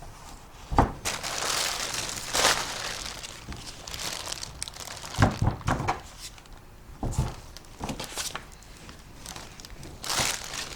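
Packing material crinkling and tearing as a boxed tool is unwrapped by hand, in several bursts, with a few sharp knocks as it is handled.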